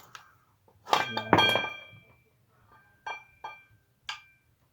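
Loose metal parts and tools clinking together with a short ringing tone. A loud cluster of clanks comes about a second in, then three lighter clinks near the end.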